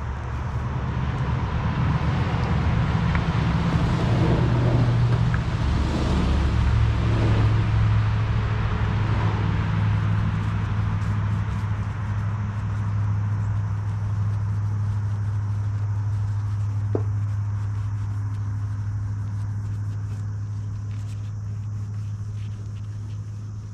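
A motor running with a steady low drone that swells over the first few seconds, then slowly fades.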